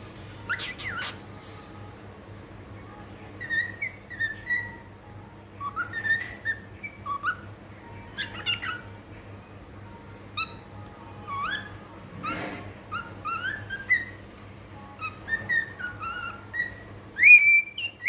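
Cockatiel whistling a song: a string of short whistled notes, many sliding upward, with a louder, longer rising whistle near the end.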